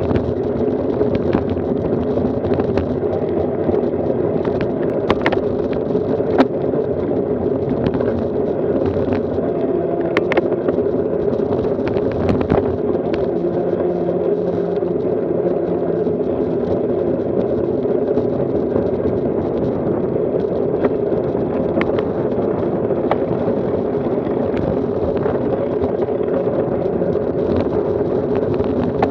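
Steady rolling and wind noise of a road bike moving in a group ride, picked up by a camera mounted on the bike, with occasional sharp clicks and knocks.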